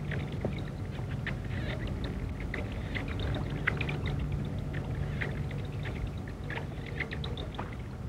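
Faint wetland ambience: soft water sounds with scattered short, faint ticks over a steady low hum.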